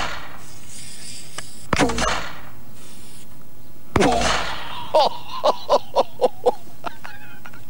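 Homemade potato cannon of plastic plumber's pipe, fuelled with hairspray and lit by a barbecue-lighter sparker, firing with a sharp bang and a short rush of noise twice, about two seconds apart. Then a man laughs in short bursts, about four a second.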